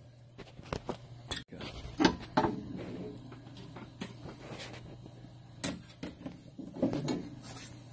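Scattered metallic clinks and knocks of hand tools and steel suspension parts being handled while a lower control arm is fitted, over a low steady hum.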